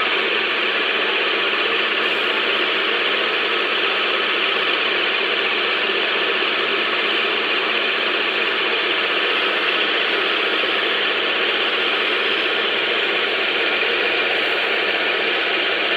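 Wood-turning lathe running steadily with a dense rattling whir as it spins a wooden dhol shell for polishing.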